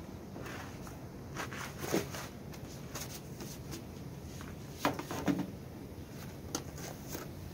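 Scattered dull thuds and scuffs of a used rubber car tyre being picked up and set onto a stack of tyres on a wheel loader's bucket, the loudest pair about five seconds in, over a steady low background noise.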